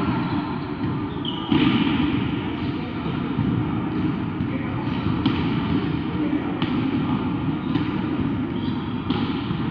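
A volleyball being struck or bounced several times, about once every second or so, in a large sports hall, over a steady murmur of players' and spectators' voices.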